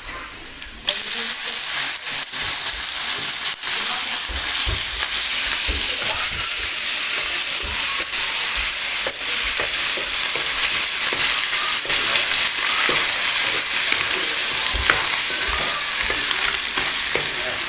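Sour fermented rice (mẻ) dropped into hot garlic oil in a frying pan, starting to sizzle loudly about a second in. It keeps frying steadily while a wooden spatula scrapes and knocks against the pan as it is stirred.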